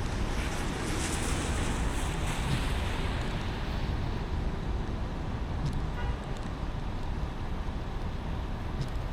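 Car driving on a rain-wet road: steady road rumble and tyre hiss, with a brighter swell of spray hiss in the first few seconds and a few faint ticks.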